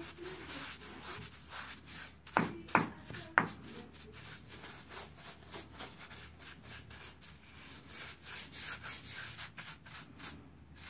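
A bristle paint brush swept back and forth over a gypsum cornice corner joint, smoothing the wet joint compound: quick rubbing strokes, about four a second, with three sharper strokes about two and a half to three and a half seconds in.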